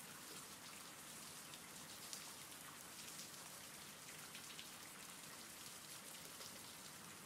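Faint steady rain: a soft even hiss with scattered ticks of single drops.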